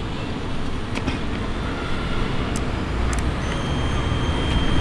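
Cordless drill motor driving a bicycle chain and sprocket on a homemade electric skateboard, starting up with a steady high whine about three and a half seconds in over a low rumble, with a few light clicks before it.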